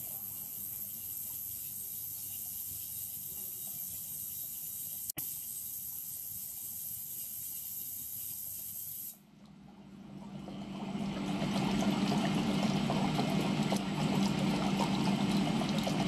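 Liquid churning and sloshing inside a clear cylinder turning on a roller drive, with a steady mechanical running noise. The sound cuts out suddenly about nine seconds in, then builds back up over a couple of seconds to a louder, fuller churning with a low steady hum.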